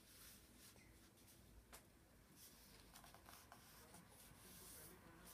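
Faint rustling and rubbing of a sheet of paper being folded and creased by hand, with a few soft clicks.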